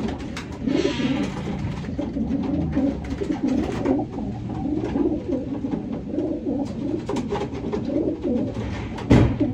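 Racing pigeons cooing, several birds overlapping in a steady, warbling chorus, with a few light clicks and a sharp thump about nine seconds in.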